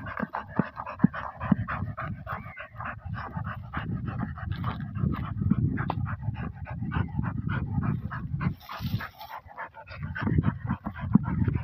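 Dog panting hard and fast while it digs into a burrow with its head in the hole, its paws scraping loose dry dirt.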